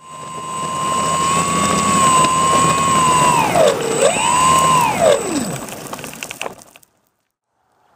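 Skywalker FPV plane's electric motor and propeller running on the ground with a steady high whine. Its pitch dips and comes back up about halfway through, then falls away as the motor is throttled off and spins down. The sound cuts off abruptly near the end.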